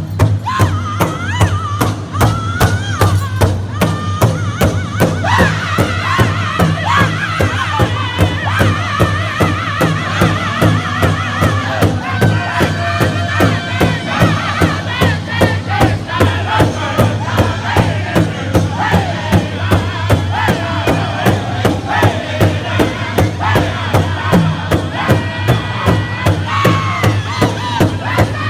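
Powwow drum group singing: a chorus of high, strained voices chanting over a steady, even beat struck in unison on a large powwow drum.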